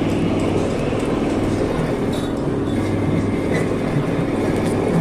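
Metal lathe running steadily with a hum, machining a steel sliding-gate wheel.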